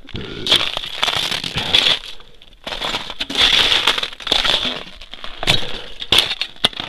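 Footsteps crunching through dry snow and over jumbled river-ice hummocks, a crunch with each step, with a brief pause about two seconds in.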